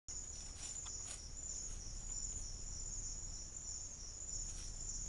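Crickets trilling steadily in a continuous high chorus, with a few faint soft ticks or rustles about a second in and again near the end.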